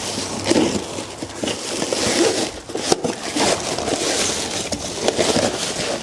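Cardboard and plastic packaging being pulled apart and crumpled by hand: a continuous rustling and crinkling with short tearing and scraping noises.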